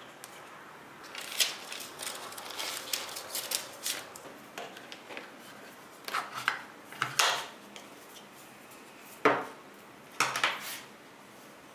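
Unboxing of a 3-in-1 wireless charger: the cardboard box lid sliding off, packaging rustling and scraping, and the plastic charger pad, adapter and cable being lifted out and set down on a desk in a string of irregular clacks, the sharpest about nine seconds in.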